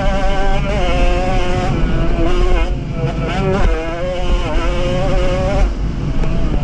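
Racing Jawa 50 moped's single-cylinder two-stroke engine at high revs, its pitch wavering with the throttle and dipping briefly twice, then dropping off near the end as the throttle is closed, with wind buffeting the onboard microphone.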